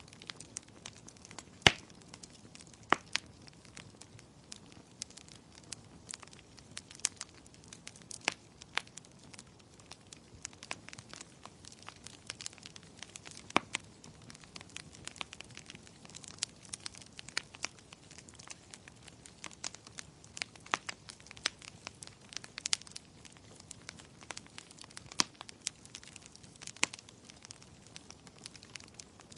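Wood fire crackling, with irregular sharp pops several times a second over a soft steady hiss; one loud pop comes near the start.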